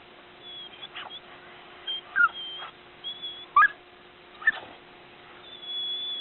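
Laika dog whining in short, high yelps that bend up and down in pitch, the three loudest about two, three and a half and four and a half seconds in, with thin high whines between them.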